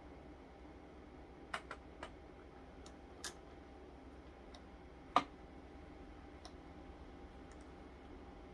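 Scattered light clicks and taps of a screw, nut and plastic vacuum-cleaner housing being handled during reassembly, about five in all with the sharpest about five seconds in, over a faint steady hum.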